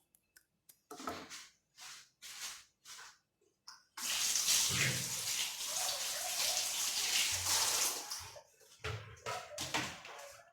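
Water running from a kitchen tap for about four seconds, starting about four seconds in, with a few short handling sounds before and after it.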